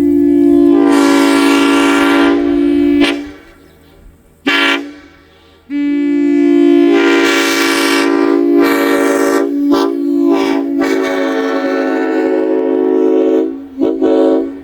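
Locomotive air horn sounding a chord of several tones: a long blast that ends about three seconds in, a short blast, a second long blast with brief breaks near its end, then a short toot.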